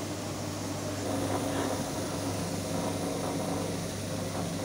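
A 1-ton horizontal ribbon feed mixer running, its ribbon agitator turning through dry livestock feed, with a steady mechanical hum.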